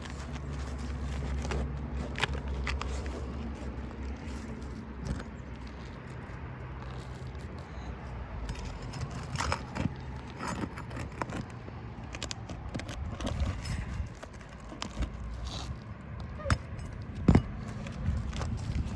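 Scattered knocks, scrapes and rustles of handling and stepping on asphalt shingles during a roof repair. A low, steady rumble, like a passing vehicle, fades out over the first several seconds, and there is a sharp knock about 17 seconds in.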